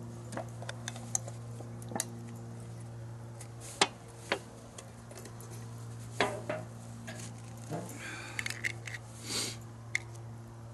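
Scattered clicks, clinks and light knocks of small metal camp-stove and fuel-bottle parts being handled, over a steady low hum.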